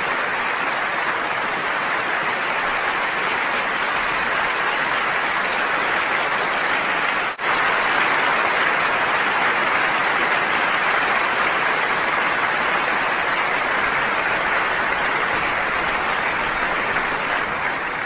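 Concert audience applauding steadily and densely, with a split-second dropout about seven seconds in.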